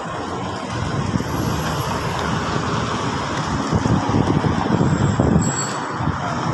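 Road traffic on a city street: cars driving past, a steady rumble of engines and tyres.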